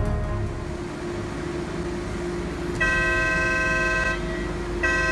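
Warning horn sounding two long, steady blasts, each about a second and a half, the pre-blast warning signal at a demolition blow-down, over a low steady hum.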